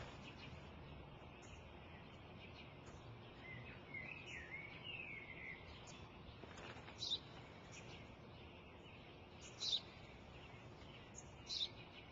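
Sparrow chirping over faint steady outdoor background noise: a short warbling run about four seconds in, then three single sharp chirps a couple of seconds apart, the last two the loudest.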